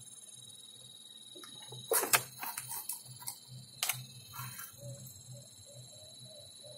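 Hands handling a small strip of tape on an opened LCD monitor panel: a few sharp clicks about two seconds in and again near four seconds, with light crinkling and ticking between, over a faint low hum and a steady high whine.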